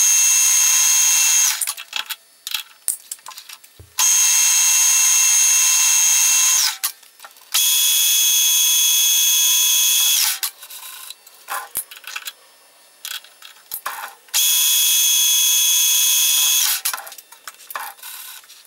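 Colchester Student lathe cutting an aluminium bar. The tool gives a loud, steady, high-pitched cutting sound in stretches of two to three seconds, four times, each dipping in pitch as it stops. Small clicks and rattles come between the cuts.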